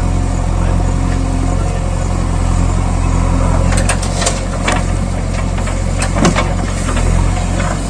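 Engine running steadily at idle with a low, even hum. A few sharp clicks and knocks come through a little after halfway.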